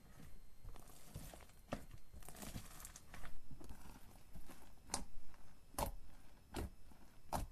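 Hands playing with slime: crackly, crinkling squishes, then a run of four sharp pops near the end, a little under a second apart.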